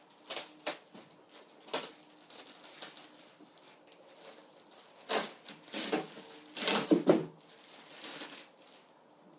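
Packing tape being pulled off and styrofoam packaging being handled while table-saw accessories are freed from it: a run of irregular scraping, crackling strokes, the loudest cluster about five to seven seconds in.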